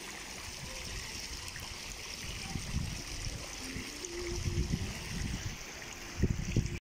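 Steady trickling and splashing of water streams pouring from swimming-pool wall inlet nozzles into the pool. Low rumbles hit the microphone in the middle and again near the end.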